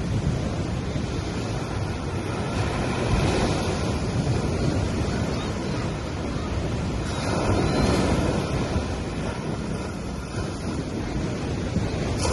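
Gentle sea waves breaking and washing up a sandy beach in a continuous surf, swelling as a wave comes in about three seconds in and again about seven seconds in.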